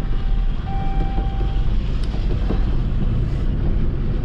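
Ram 3500 pickup driving, heard from inside the cab: a steady low engine and road rumble. Over it the seatbelt warning chime sounds a steady electronic tone, briefly at the start and again for about a second in the first half.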